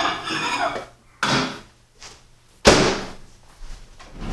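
Over-the-range microwave door being opened, then shut with a sharp thud about two and a half seconds in. A lighter knock comes a second or so after it opens.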